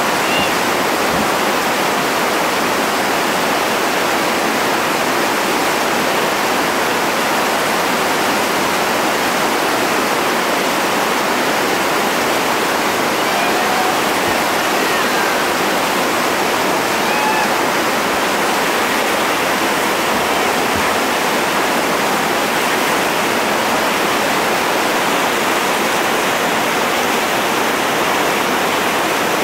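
Whitewater rapids at the foot of a small river falls, rushing steadily as the river pours through.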